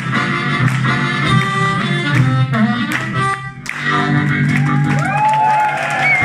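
Live blues band with an amplified harmonica lead playing the closing bars of a song. Rhythmic ensemble hits run until a short break about three and a half seconds in, then a long held final chord.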